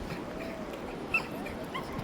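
Steady rush of moving water, with a couple of short, faint, high rising squeaks, one about a second in and a weaker one near the end.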